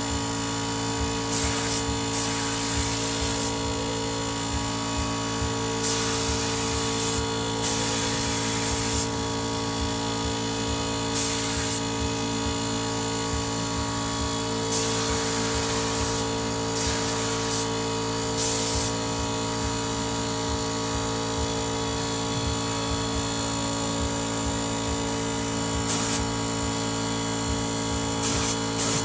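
A 24-litre Motomil air compressor running with a steady motor hum. Short hissing bursts of air come over it about a dozen times, clustering near the end.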